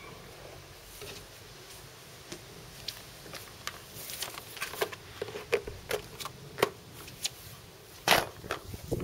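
Scattered clicks and knocks as a cable extension reel and its plugs are handled, thickening from about three seconds in, with the loudest knock near the end.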